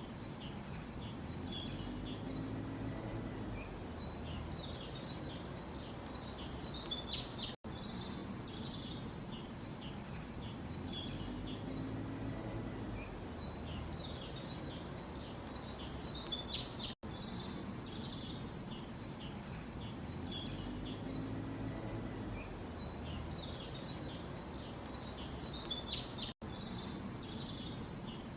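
Small birds chirping and trilling in quick high calls over a steady low background hiss. A short recording loops about every nine seconds, with a brief dropout at each seam.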